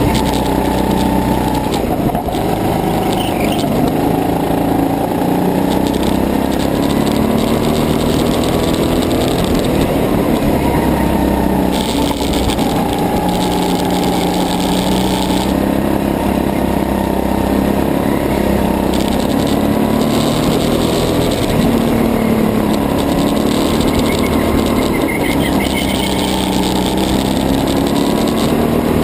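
Rental go-kart engine running flat out around a track, its pitch rising and falling as the kart slows for corners and accelerates out of them. It is heard close up from a camera mounted on the kart's own fairing.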